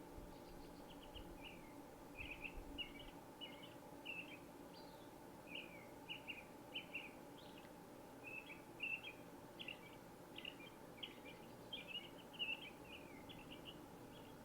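Faint birdsong: many short chirps and twitters in quick succession, over a low steady hum.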